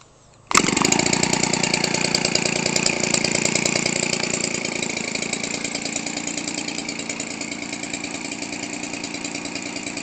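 Weedeater Featherlite 17cc two-stroke engine, converted for RC aircraft use, idling steadily. It comes in abruptly about half a second in and grows slightly quieter over the rest.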